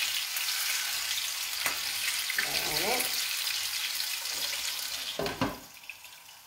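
Turkey rolls frying in oil in a frying pan, a steady sizzling hiss as they are turned. A little over five seconds in there is a single knock, and the sizzling drops away sharply.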